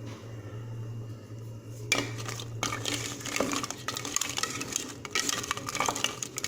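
A metal spoon stirring crab pieces and water in a cooking pan, scraping and clinking against the pan from about two seconds in, over a steady low hum.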